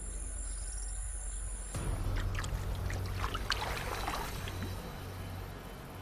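Water splashing and sloshing in irregular bursts, starting about two seconds in over a steady low hum, as a music bed fades out.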